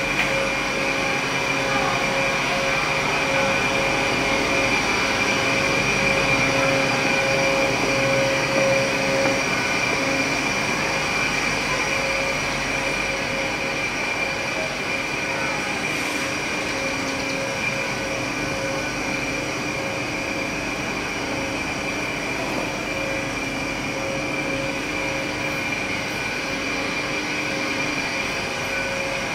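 Steady mechanical hum with two held tones, one middle-pitched and one high, over an even rushing noise.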